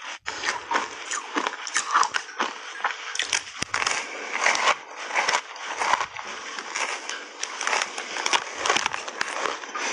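A slab of frozen matcha ice coated in milk powder being bitten and chewed: a dense, irregular run of crackling crunches.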